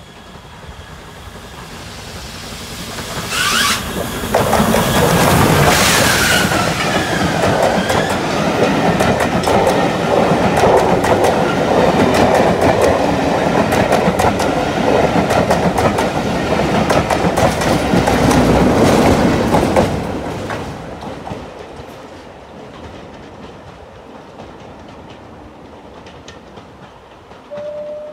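A steam locomotive hauling a train of coaches approaches and passes close by. The sound grows, there are two bursts of hiss as the engine goes by, then the coaches' wheels click over the rail joints for about fifteen seconds before fading away. A short faint tone comes near the end.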